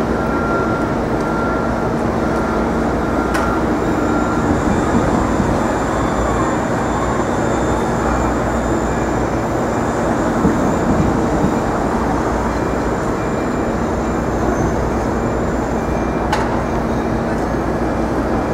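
Steady, loud city noise of traffic and machinery hum, with a couple of faint clicks.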